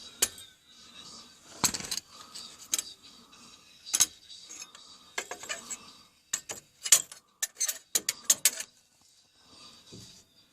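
Ford Focus II suspension knocking: sharp, clattering knocks at irregular intervals, bunching into a quick run in the second half. It is a suspension knock whose cause the owner has not yet found.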